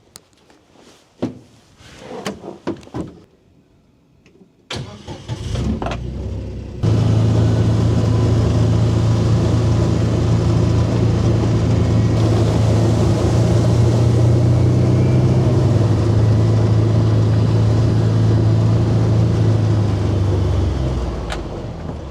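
A few knocks and clicks, then a vehicle engine starts about five seconds in. It picks up sharply about two seconds later and runs loud and steady as the vehicle drives off, easing down near the end.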